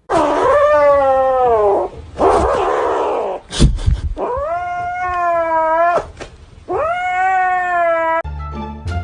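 An angry cat caterwauling: three long, wavering yowls, with a noisy burst between the first two and a thump in the middle. Music comes in near the end.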